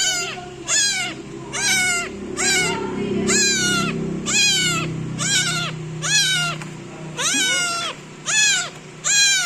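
A kitten meowing loudly and insistently, about a dozen high calls in a row, each rising then falling, a little more than one a second. A low steady hum sits underneath and fades out near the end.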